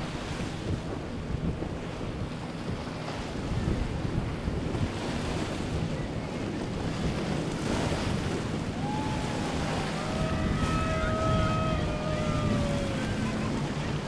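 Surf and wind on the microphone, with a boat engine droning under it as a pontoon boat runs through choppy inlet water. From about nine seconds in, a few drawn-out tones slide slowly downward for several seconds.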